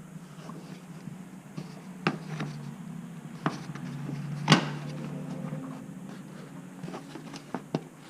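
A few separate sharp clicks and knocks, the loudest about halfway through, over a steady low hum: plastic trim pieces and clips on a 4Runner being handled and pried during bulb access.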